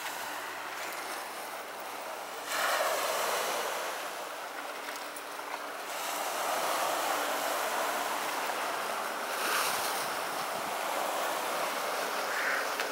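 Sea waves washing onto a sand-and-pebble shore, a steady rush that swells and ebbs, rising about two and a half seconds in and again around six seconds in.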